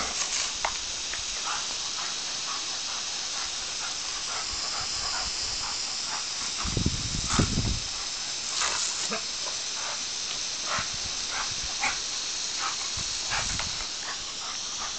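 Garden hose spraying water with a steady hiss, with a Doberman snapping and splashing at the spray in many short ticks. A brief low thump comes about seven seconds in.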